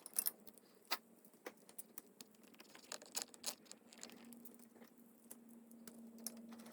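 Faint, irregular light clicks and taps of small tools and bolts being handled while the idle air control valve bracket is refitted on a motorcycle engine, with a faint steady hum coming in about four seconds in.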